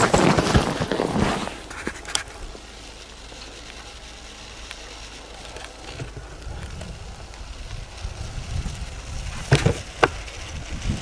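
Snow crunching and hissing, loudest in the first second and a half and then quieter, with two sharp clicks near the end.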